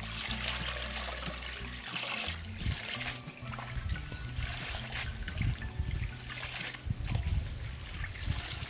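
Water splashing and trickling as hands swish leafy greens around in a steel basin of water and lift them out, in repeated splashes.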